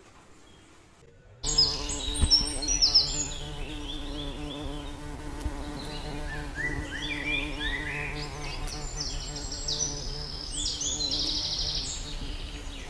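A steady buzzing hum begins about a second and a half in, with flurries of short, high bird chirps above it, some in quick rising runs.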